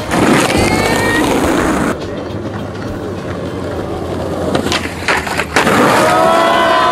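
Skateboard wheels rolling over concrete, the rolling noise dropping abruptly about two seconds in, with a few sharp clacks of the board near the end.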